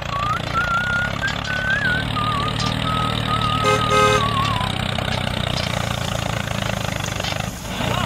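Tractor engine sound running steadily with a low rumble, laid over the toy tractor as it drives, with a wavering whistle-like music line over it in the first half.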